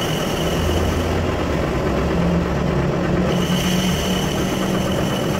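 Metal lathe running steadily with a motorcycle wheel spinning in it, a continuous machine hum and whir. A thin high whine comes in about three and a half seconds in.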